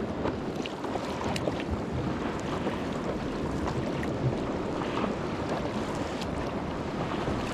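Steady outdoor wind and water noise, with a few small clicks and splashes scattered through it.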